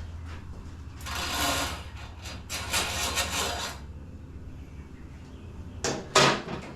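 Workshop handling noises: two stretches of rustling or scraping, then two sharp knocks near the end, over a steady low hum.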